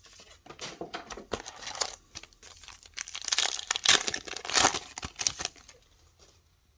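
A plastic-foil trading-card pack wrapper being torn open and crinkled by hand. It is loudest in the middle and dies away near the end.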